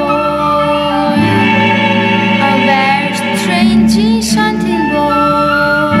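A girl singing while accompanying herself on a grand piano. The piano's held chords carry throughout, and her sung phrase comes through most clearly in the middle.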